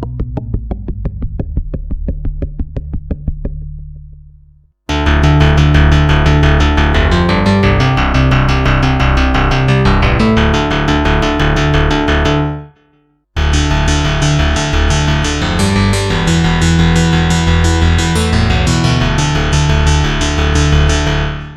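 Waldorf Microwave wavetable synthesizer playing a rhythmic keyboard phrase with a bass line. The same phrase plays twice, about eight seconds each, with a short gap between them: the same sound program heard on the Microwave I and then the Microwave II. A previous phrase fades out first.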